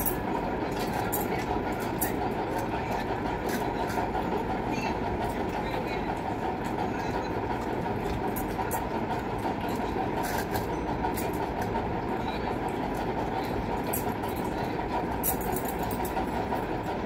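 Steady rumbling whoosh of a running electric fan's airflow on the phone microphone, with faint scattered clicks on top.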